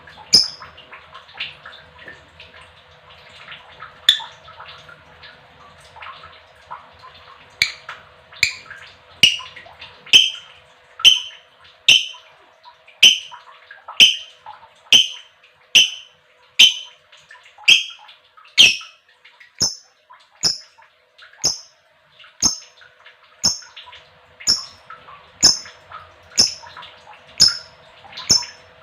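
Female lovebird calling: sharp, high, squawky chirps. They are sparse at first, then from about eight seconds in repeat evenly at about one a second.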